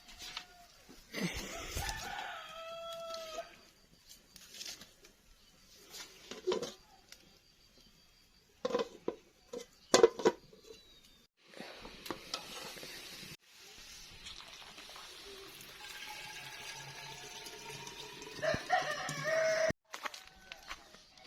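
Rooster crowing, once about a second in and again near the end. In between come a few sharp knocks and clatter, the loudest about halfway, then a steady hiss through the second half.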